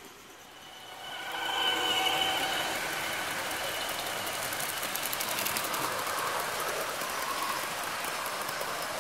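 Märklin gauge 1 model freight train rolling past close by: it swells in about a second in with a few steady humming tones, then the wheels of the long string of freight cars keep up a steady rushing rattle with rapid fine clicks on the metal track.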